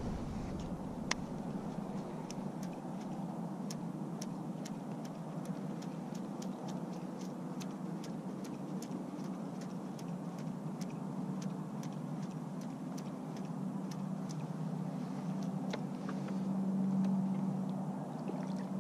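Baitcasting reel being cranked through a topwater retrieve: a steady low whir with light, regular ticks about twice a second, getting a little louder near the end.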